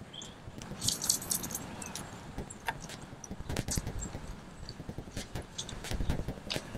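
Wet magic eraser (melamine foam) scrubbed hard against the plastic hull of an Eddyline Skylark kayak to rub out rack scuff marks: a rapid, irregular run of scratchy rubbing strokes and small clicks.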